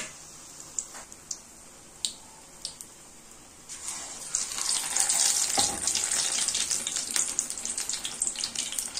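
Gram-flour-battered karpooravalli (Indian borage) leaves deep-frying in hot oil: a gentle sizzle with a few scattered pops. About four seconds in, a second battered leaf goes into the oil and the sizzle jumps to a loud, dense hiss that stays up.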